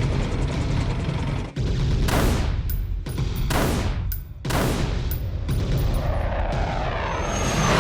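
Action-movie sound effects: a heavy low rumble under what sounds like gunfire, with three whooshes sweeping past about two, three and a half and four and a half seconds in.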